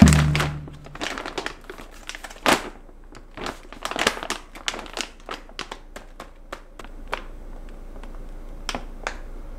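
Crinkling and rustling handling noise, opening with a dull thump. The rustles come thick and irregular at first and thin out to a few scattered clicks after about seven seconds.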